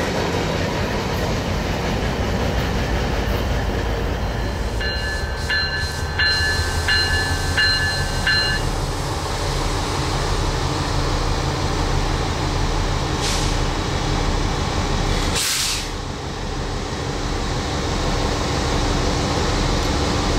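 Freight train rolling by on jointed track, a steady loud rumble of locomotives and cars. About five seconds in, a bell rings rapidly for about four seconds. Near the end there are two short hisses.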